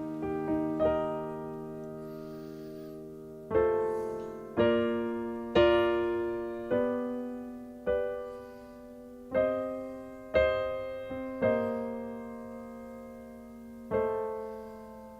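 Slow, quiet piano music: single notes and chords struck about once a second, each left to ring out and fade, with a longer pause before a last chord near the end.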